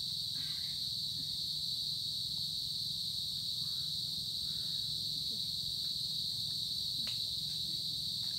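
A steady, high-pitched insect chorus, one unbroken buzz, over a low rumble, with a faint click or two near the end.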